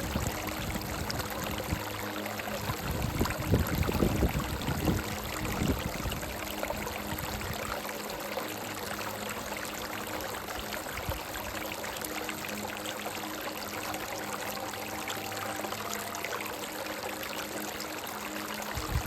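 Stream running over rocks: a steady rush of water, with louder low gurgling about three to six seconds in. A soft, sustained melody sits faintly underneath.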